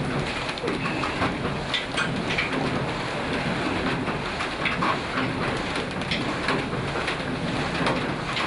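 Old mill machinery running: a dense, steady clatter of many small knocks and ticks over a rushing noise.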